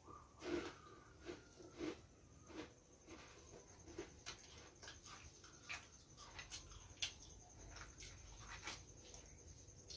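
Quiet eating sounds: scattered soft clicks and smacks of chewing and of fingers tearing food over steel plates, about two a second, with a faint steady high-pitched whine behind them.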